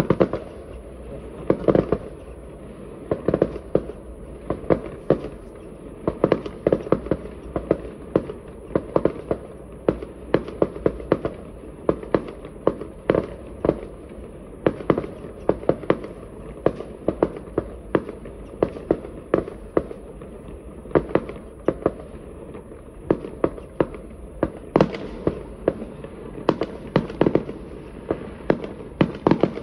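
Fireworks display: an unbroken barrage of shell bursts, several bangs a second, over a steady low rumble.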